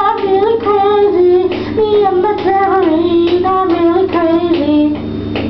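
Singing a tune over a small acoustic guitar strummed in a steady rhythm.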